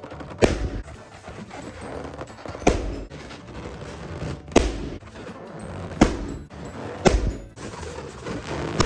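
Rubber balloons being burst by hand: five sharp pops, one every one to two seconds.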